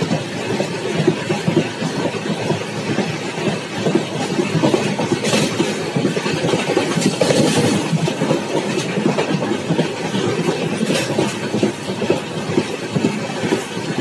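Kondaveedu Express passenger coaches running at speed, heard from an open coach doorway: a loud, steady rumble of wheels on the rails, with a few sharper knocks about five, seven and eleven seconds in.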